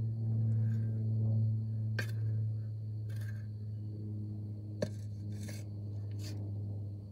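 Shovel digging hard clay soil and tipping it into a metal wheelbarrow: a handful of short scrapes and knocks of the blade, with one sharper clank about five seconds in. Under it all runs a steady low hum.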